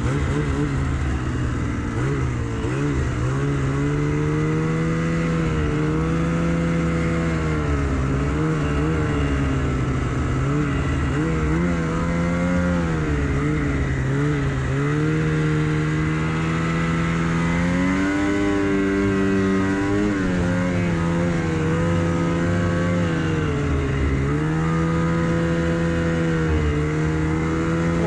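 Snowmobile engine running while riding, its pitch rising and falling repeatedly with the throttle and holding steady in between.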